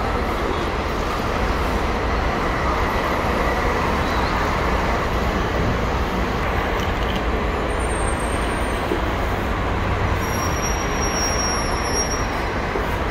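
Buses running at a busy bus terminal: a steady engine rumble and traffic noise. Brief high-pitched squeals come about eight seconds in and again near the end.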